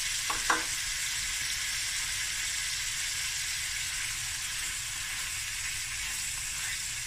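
Haddock pieces frying in butter with onions and mixed vegetables in a stainless steel pan: a steady sizzle, while a wooden spoon moves the fish about. Two light knocks about half a second in.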